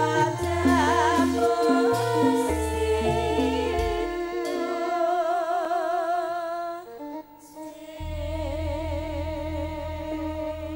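Campursari band music with keyboard and drums under female vocals held with a wide vibrato. About seven seconds in the band nearly drops out for a moment, then a deep bass comes back in under a long sung note.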